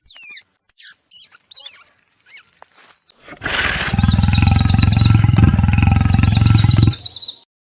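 A series of quick, high, falling chirps, then a breathy intake. About four seconds in comes a loud, deep, rumbling roar from a large animal, held for about three seconds, while faint high chirps continue behind it.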